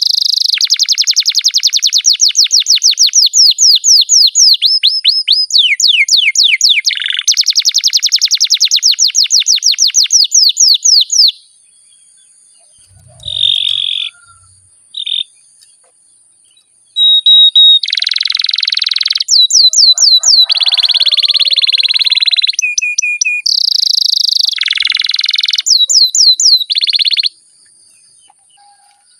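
Domestic canary singing long, rolling trills of rapidly repeated high notes. The song breaks off about a third of the way in, leaving a few short chirps, then resumes with more trills and stops shortly before the end.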